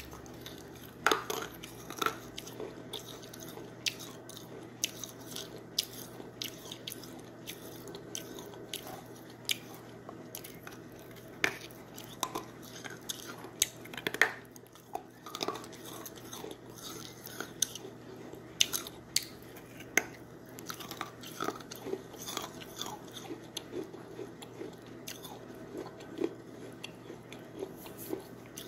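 A person biting and chewing crunchy food close to the microphone: irregular sharp crunches, several of them louder bites, between quieter chewing.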